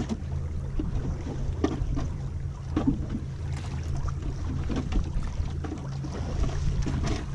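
Outboard motor idling with a steady low hum, while small waves slap irregularly against the boat's hull.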